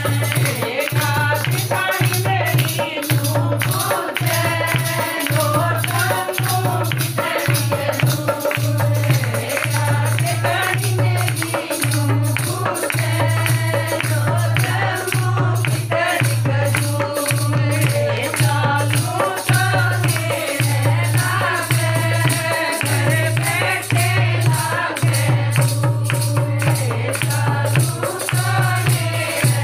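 Devotional kirtan music: singing over a dholak drum beating a steady rhythm, with jingling hand percussion.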